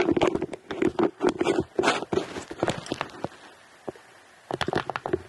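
Handling noise of a handheld camera: fingers clicking and rubbing on the body and buttons close to the microphone while it is adjusted. It comes in two spells of rapid clicks, with a pause of over a second in the middle.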